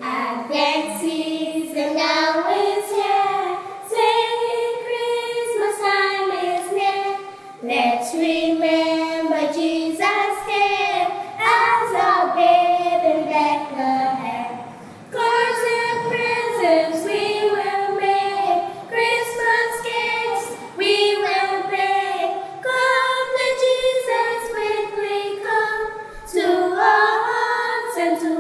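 A choir singing without accompaniment, in short phrases with brief breaks between them.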